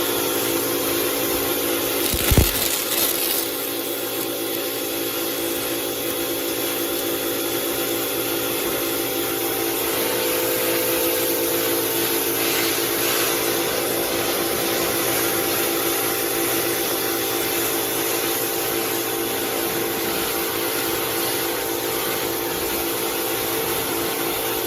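Electric pressure washer running steadily, its motor and pump giving a constant hum while the water jet hisses. A short thump about two seconds in.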